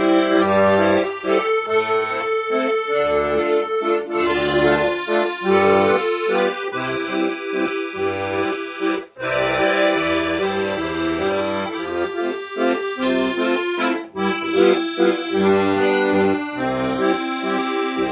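Accordion playing a bass-and-chord accompaniment in a steady pulse, with the first bass note of each bar joined smoothly to the chord after it rather than detached, under sustained notes above. The playing breaks off briefly about nine seconds in, then resumes.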